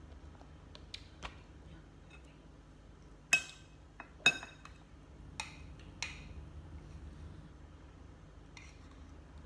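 A metal spoon clinking against a glass bowl and a small glass cup while eating. There are several sharp clinks, the two loudest about three and a half and four and a half seconds in.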